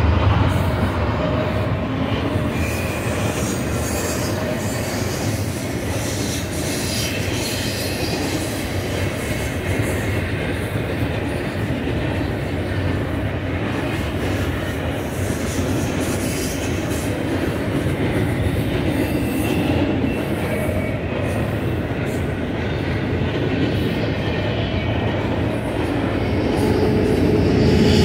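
Double-stack container well cars rolling past: a steady rumble of steel wheels on rail, with some faint high wheel squeal. It grows louder near the end.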